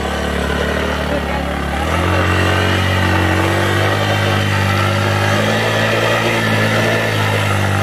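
Motorcycle engine running under way, its pitch stepping up about two seconds in and then holding steady.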